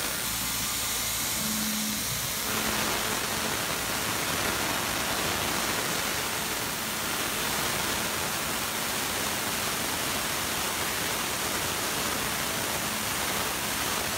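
Tormach PCNC 770 CNC mill cutting aluminium with a 3/8-inch two-flute carbide end mill: a steady, even rush of spindle and cutting noise that grows fuller about two and a half seconds in.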